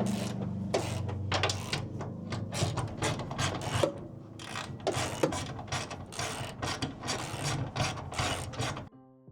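A ratchet clicking in quick, uneven runs as the bolts holding the van's bulkhead are undone by hand. Music starts near the end.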